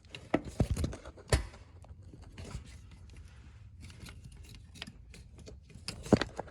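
Sharp clicks and light knocks of hand work on the shift cable and its plastic and metal fittings: a few clicks about half a second in, another a second later, a quick pair near the end, with faint small ticks and rustles between.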